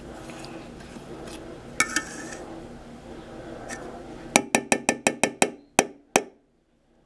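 A low steady hum, then a quick run of about eight sharp clinks over two seconds, after which the sound stops.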